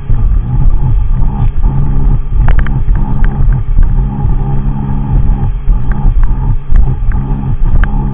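Sea-Doo personal watercraft engine running hard at speed, a loud steady drone, with wind rushing over the microphone and a few sharp ticks.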